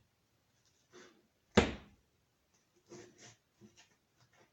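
A single loud metallic knock about a second and a half in, followed by a few light clicks and taps, as a breaker bar and socket are worked on a stuck plug of a brake master cylinder held in a vise.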